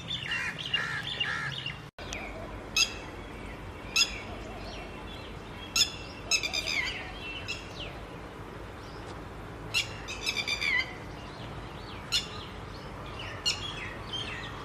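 Red-wattled lapwing calling: loud, sharp notes, some single and some in quick runs of four or five, repeating every second or two. Softer twittering of small birds comes before them in the first two seconds.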